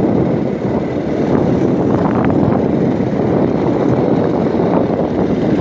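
Motorcycle riding along a gravel track: a steady rush of wind buffeting the microphone mixed with the bike's running and tyre noise on the loose stones.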